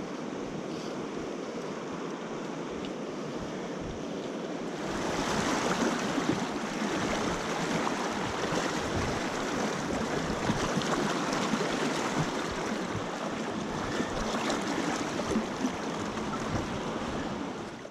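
River water rushing and splashing in a steady hiss, getting louder and brighter about five seconds in.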